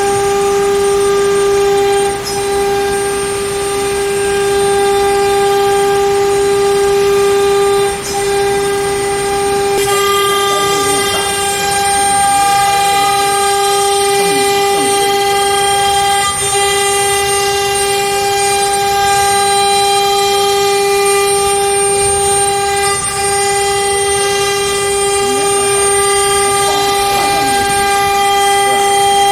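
Water-cooled CNC router spindle whining at a steady high pitch as it cuts an epoxy panel, with brief dips in level a couple of times and a richer, harsher tone from about ten seconds in.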